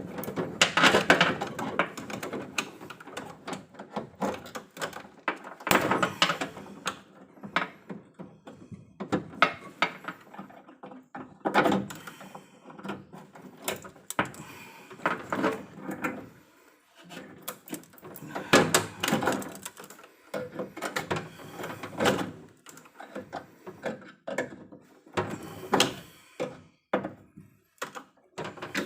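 Irregular knocks, clunks and rattles of hand work on an electrical distribution panel and its cables, coming in short clusters with brief pauses.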